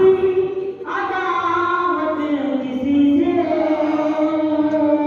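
A single high voice singing long, drawn-out held notes without instruments, in a melodic devotional recitation, with a new phrase starting about a second in and another about three seconds in.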